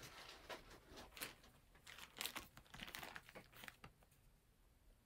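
Packaging crinkling and rustling as it is handled, in a run of short bursts that stop after about four seconds.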